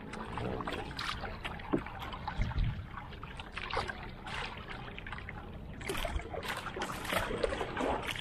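Single-bladed paddle dipping and pulling through choppy seawater beside a small wooden outrigger canoe, with irregular splashes and water trickling off the blade, over the wash of the waves against the hull.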